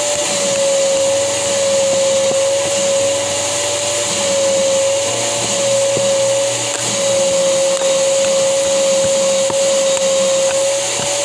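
A small motor running steadily: one held whine, wavering slightly in pitch, over a constant hiss.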